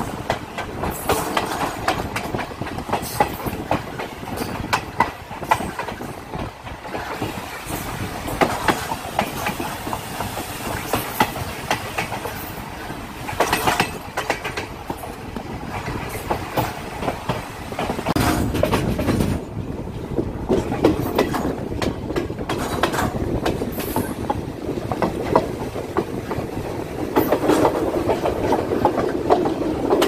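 Train running along the track, heard from on board: a steady rumble with irregular clicking and knocking of the wheels over the rail joints, heavier in the last third.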